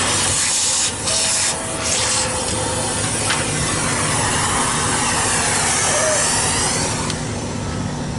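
Compressed air blowing in a steady, loud hiss, used to clean debris out of the parts of a disassembled vacuum turbo brush head. The jet cuts out briefly twice about a second in and stops about seven seconds in.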